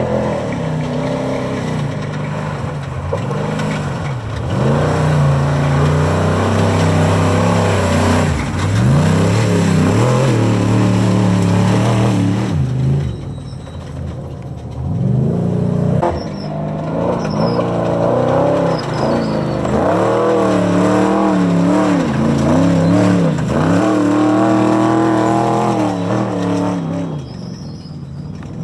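Trophy truck race engines revving hard and easing off again and again as the trucks power across rough dirt, the pitch sweeping up and down every second or two. The sound dips briefly about halfway through, then builds back up to full throttle.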